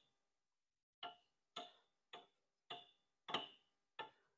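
Evenly spaced sharp metallic ticks, about two a second, six in all, starting about a second in.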